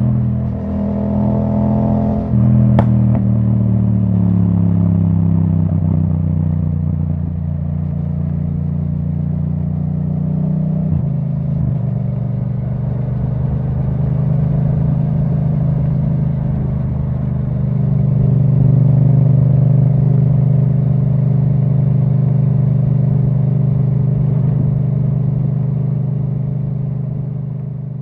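Yamaha MT-07 parallel-twin engine through an Akrapovic titanium exhaust with the dB killer removed, coming off the throttle: its note falls steadily after a single sharp crack about three seconds in, then settles into a steady low-rpm note that swells about two thirds of the way through and fades near the end.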